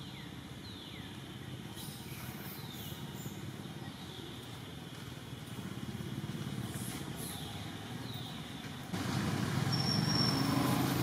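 Outdoor background of a steady low rumble like distant traffic, with a few short, high, falling calls. It gets louder about nine seconds in, with short high chirps.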